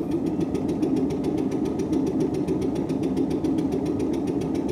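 Stuart Turner P5M two-stroke single-cylinder inboard boat engine being spun over to start, turning with a fast, even beat. It is a first start attempt with the carburettor flooded by tickling and the idle cam opened a little.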